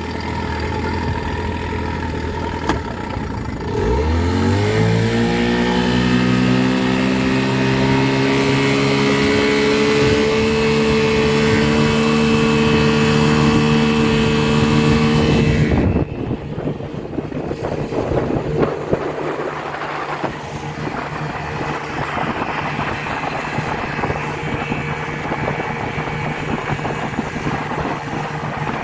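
1978 Chrysler 15 hp two-stroke outboard motor running on a boat. It starts at a low steady note, is throttled up about four seconds in with a rising pitch that settles into a steady high-speed run, then about sixteen seconds in the sound drops abruptly and carries on as a quieter, rougher drone.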